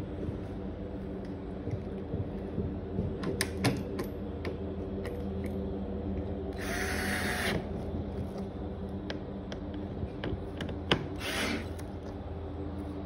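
Black+Decker cordless drill driving screws into a car's trunk lid. It runs in two short bursts, about a second long roughly seven seconds in and briefly again near the end, with clicks and taps between, all over a steady low hum.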